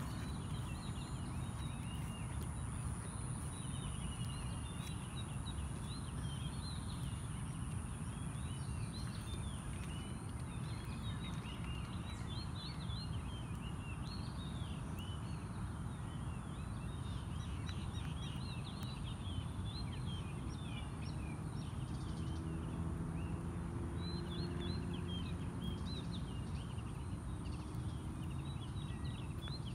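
Many small birds chirping and singing in a dawn chorus, over a steady low outdoor rumble and a thin steady high whine.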